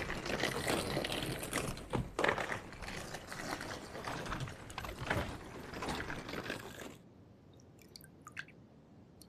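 Wheels of rolling suitcases rattling over a paved path, with footsteps. About seven seconds in it drops to a much quieter stretch with a few faint water drips.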